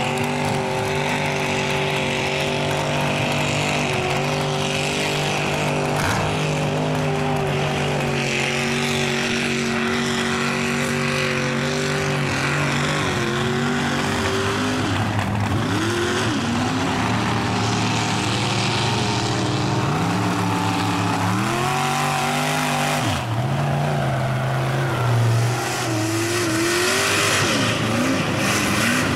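Mud-bogging pickup truck engines held at high revs as the trucks plough through a mud pit. In the second half the revs drop and climb again several times.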